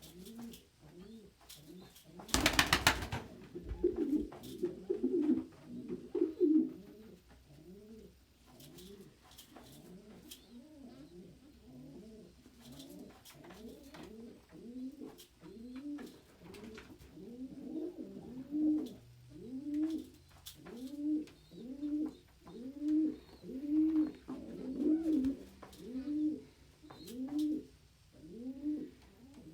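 Domestic pigeons cooing: low, rising-and-falling coos repeated about once a second, growing louder in the second half. A brief loud rustling burst comes about two seconds in.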